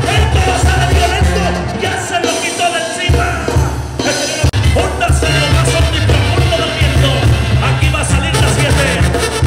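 Background music with singing over a steady bass beat; the bass drops out for about a second around two seconds in.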